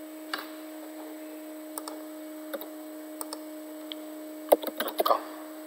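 Single keystrokes on a laptop keyboard, a few clicks spaced out over several seconds, then several in quick succession near the end, over a steady low hum.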